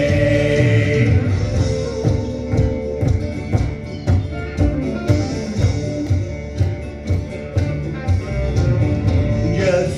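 Instrumental break of a live country-gospel band, the accompaniment playing on with a steady beat. A held sung note fades out just after the start, and the singing comes back in right at the end.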